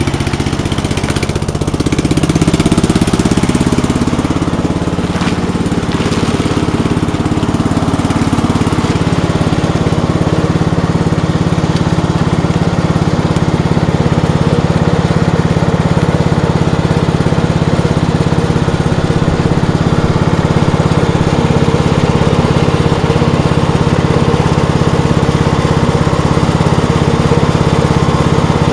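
Riding lawn tractor's engine running just after a cold start. It picks up speed about two seconds in, then holds a steady speed.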